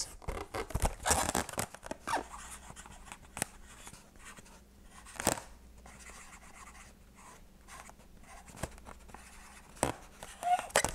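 Light rubs and scattered clicks of hands working a twisted latex balloon animal as eyes are put on it, with one sharper click about five seconds in.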